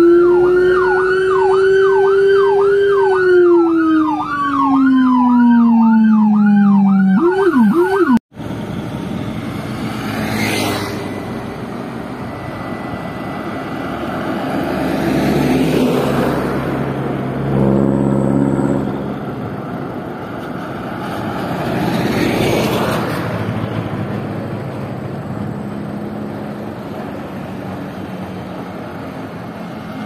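Whelen 295SDA1 dual-tone electronic siren through an SA314 speaker, sounding a fast yelp over a second tone that slides down in pitch, then cutting off suddenly about eight seconds in. After that, road traffic passing, swelling louder twice.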